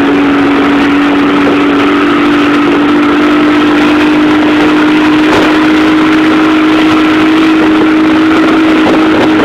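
Loud, steady humming drone whose pitch creeps slowly upward, with a fainter higher tone above it, over a constant rushing hiss.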